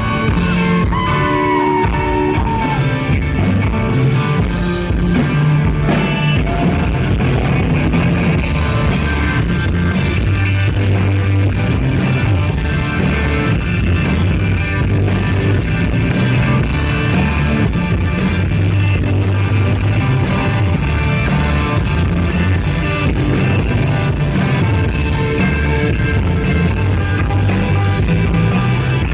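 Live rock band playing with electric guitar, bass and drums; the drum hits grow denser about eight seconds in.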